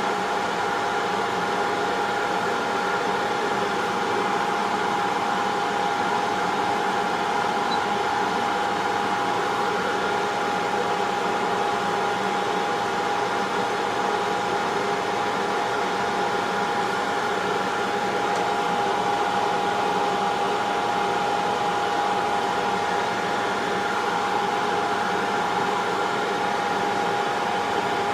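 Hot air rework station blowing steadily, with a steady fan whine, as it heats the solder holding an Xbox One S HDMI port.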